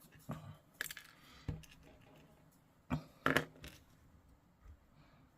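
Small plastic model parts being handled and pressed together: a few short, sharp clicks and taps, a handful of them spread irregularly.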